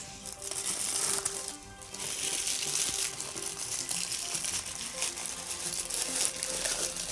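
Tissue paper rustling and crinkling as it is unwrapped from around a card box, going briefly quiet about a second and a half in, over faint background music.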